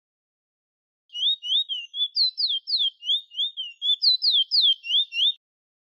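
Chestnut-bellied seed finch, the 'bullfinch' or towa towa, singing a clear whistled song of quick slurred notes, about four a second, some swooping up and some sliding down from higher. It starts about a second in and stops near the end.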